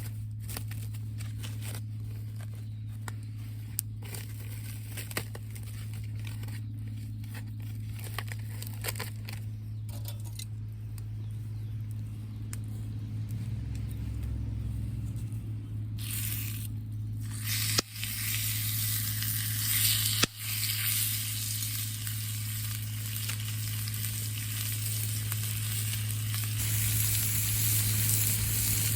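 Food frying and sizzling: a loud, even hiss that comes in a little past halfway, after a stretch of scattered small clicks and crackles over a steady low hum.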